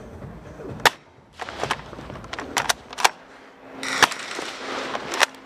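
Airsoft guns firing in a game: about eight sharp pops at uneven intervals, the loudest just under a second in and about four seconds in.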